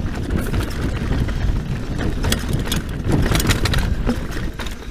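Scott Genius full-suspension mountain bike riding down a dirt singletrack: wind rumbles on the camera microphone while the tyres roll over dirt and rocks and the bike rattles in many short clicks, busiest in the middle.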